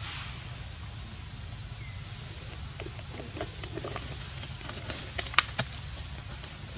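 Outdoor ambience: a steady high-pitched hiss over a low rumble, with a few short sharp clicks and taps in the second half, the loudest a little after five seconds in.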